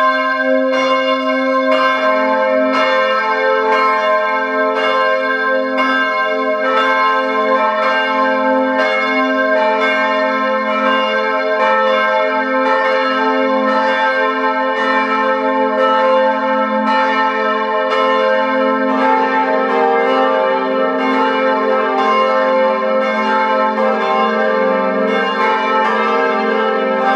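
Church bells ringing in a steady, even peal, each stroke ringing on over the next, with the pitches of the ringing shifting about two seconds in and again near twenty seconds.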